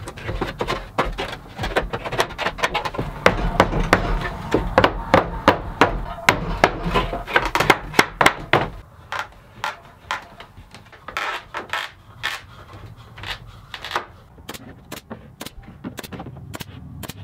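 A mallet knocking wooden strips into place, many quick knocks on wood in a row. From about nine seconds in, a pneumatic 23-gauge pin nailer takes over, firing sharp single shots about once or twice a second.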